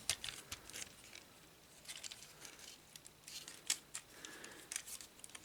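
Faint, scattered plastic clicks and handling noise from a Studio Series Hot Rod Transformers action figure as its parts, such as its wheels, are flipped and moved by hand.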